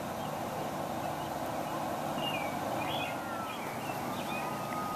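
Outdoor background hum with small birds chirping, short rising and falling calls from about two seconds in, and a thin steady whistled note near the end.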